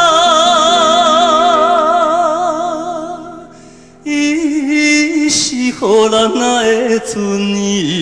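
A male singer holds a long note with wide vibrato in a Taiwanese Hokkien ballad over band accompaniment. The note fades away about three and a half seconds in, then the music comes back in loudly and he sings on.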